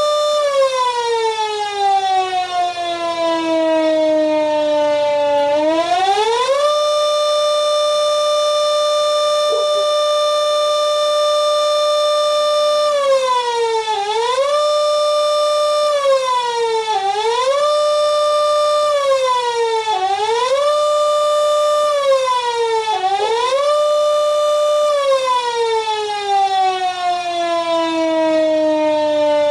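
Kuangbad RF300V vertical electric rotary siren sounding one steady tone. It winds down slowly, winds back up to full pitch and holds. Then it dips and recovers four times about three seconds apart, and near the end it winds down again.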